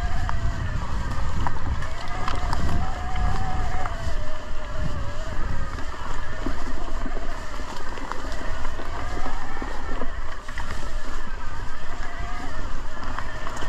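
Mountain bike rolling down a dirt trail: wind buffets the microphone, a whirring tone rises and falls with the bike's speed, and short knocks and rattles come from the bumps.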